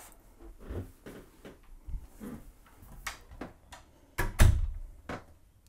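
Scattered light knocks and clicks in a small room, with one heavier low thump a little over four seconds in, as someone moves out through a doorway in a boat's cabin.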